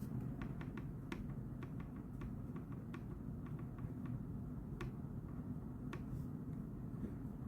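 Scattered light clicks and taps from small objects handled on a desk, irregularly spaced, over a steady low hum.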